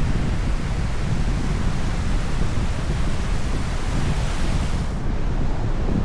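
Ocean surf washing onto a beach, with wind buffeting the microphone. The high hiss of the surf drops away about five seconds in.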